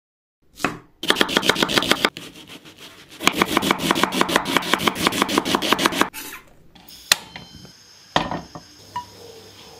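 Kitchen knife rapidly chopping red onion on a wooden cutting board, about ten strokes a second, in two runs: a short one, then a longer one of about three seconds. A few separate knocks follow near the end.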